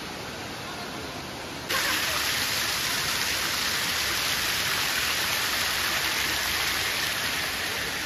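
Steady rushing noise of the Tirathgarh waterfall. A little under two seconds in it turns abruptly louder and brighter, then holds steady.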